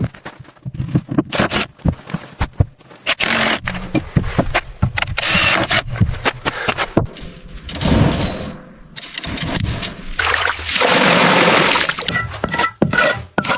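Bursts of scraping and rustling among many knocks and clicks, the longest scrape coming about eleven seconds in.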